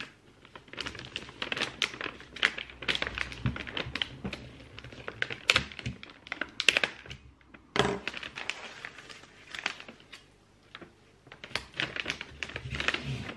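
Paper gift bag rustling and crinkling as its top is folded shut by hand, broken by many sharp clicks and taps, with a short quieter pause about ten seconds in.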